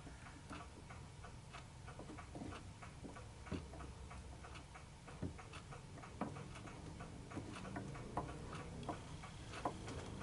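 Faint ticking, about two light ticks a second, with a few sharper clicks among them.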